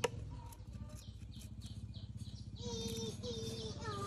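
A knife chops once into a wooden chopping block at the start, followed by faint light taps. In the second half a bird calls twice, short flat calls, over a steady low hum.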